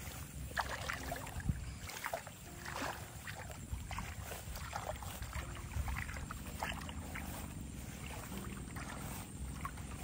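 Hands and legs sloshing and splashing in the shallow, muddy water of a rice-paddy ditch: repeated irregular small splashes as the water is stirred and scooped.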